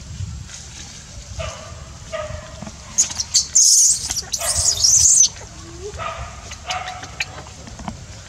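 Infant long-tailed macaque crying in distress: short whimpering calls, then two loud, piercing screams about three seconds in that last some two seconds together, then whimpering again.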